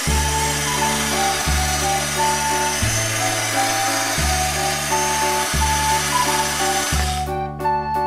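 Background music over the whirring buzz of a battery-powered toy grinder, which cuts off about seven seconds in.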